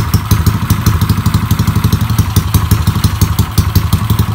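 Yamaha Mio scooter engine, bored up to 200cc, running steadily at idle through an aftermarket racing exhaust, with a rapid, loud exhaust beat.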